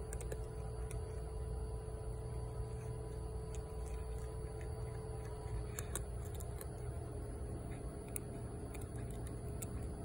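Cat crunching dry kibble: scattered small, crisp clicks, a cluster about six seconds in and more near the end. Underneath runs a steady low mechanical hum with a faint whine.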